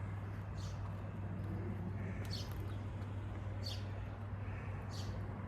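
A bird chirping, short calls about once every second and a half, over a steady low mechanical hum.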